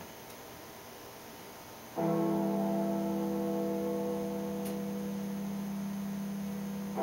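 Background music on a keyboard: after a faint fading tail, a chord is struck about two seconds in and held steadily, and a new chord comes in at the end.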